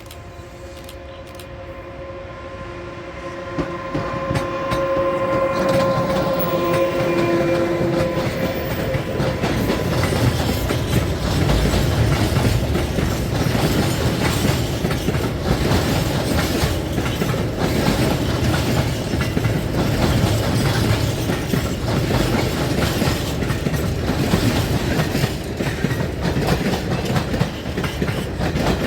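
A train sounds a long horn note as it approaches. Over the next several seconds it grows louder, then passes close by, with loud clatter from the wheels over the rail joints.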